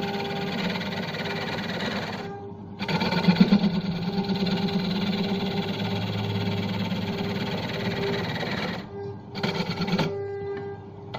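Belt-driven wood lathe running while a gouge cuts the face of a large spinning wooden disc: a steady motor drone under the rasp of the cut. The cutting noise drops out briefly about two seconds in and again twice near the end.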